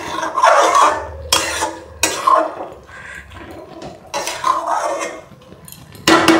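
A metal spatula scraping and clanking against stainless-steel cookware while stirring greens and potatoes in a kadai. Several sharp clanks, one near the end ringing briefly, with scraping between them.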